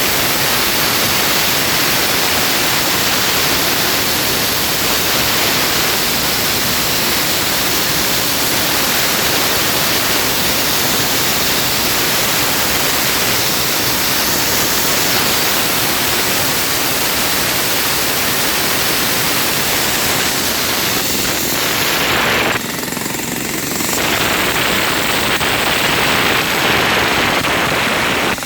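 Loud, steady noise of a power tool working concrete, cutting or breaking, easing off briefly about 22 seconds in before carrying on.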